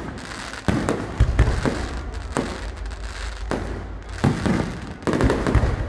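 Aerial fireworks shells bursting in quick succession, a sharp bang about every second, with dense crackling between the bangs.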